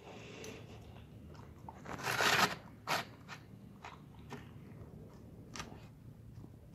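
A dog eating bread and fried egg from a plastic tray: biting and chewing, loudest in a half-second crunch about two seconds in and a shorter one just after, then scattered short clicks of chewing.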